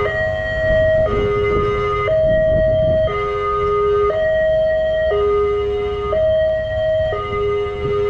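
Railway level-crossing warning siren sounding a hoarse two-tone alarm, switching between a higher and a lower tone about once a second, with a low rumble underneath. The alarm signals that a train is approaching and the barrier is down.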